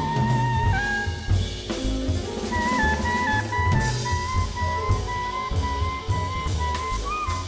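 Live jazz band playing: a brass horn carries a melody in held notes that step up and down, over a busy drum kit with bass drum.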